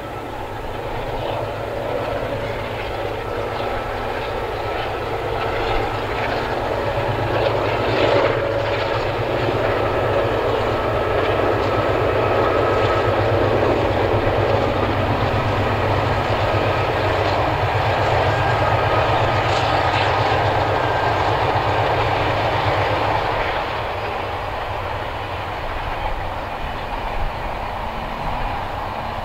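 A vintage diesel-hauled passenger train passing, its locomotives' diesel engines throbbing under the rumble of the train. It grows louder over the first third, holds through the middle, then slowly fades.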